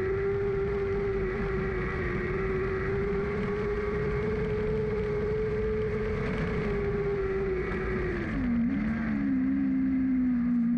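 Lightning sprint car engine heard from on board, held at steady high revs, then backing off about eight seconds in, its pitch dropping and falling as the car slows.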